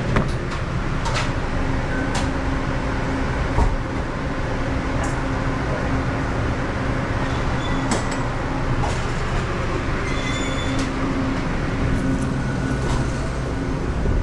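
Commercial refrigeration condensing unit running steadily, compressor and condenser fan humming, with a few light knocks. The system is short of R-404A refrigerant charge.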